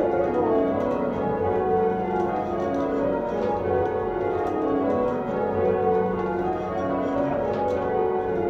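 Church tower bells being change-rung, heard from the ringing chamber below the bells: a continuous run of bell strikes following one another, their ringing tones overlapping.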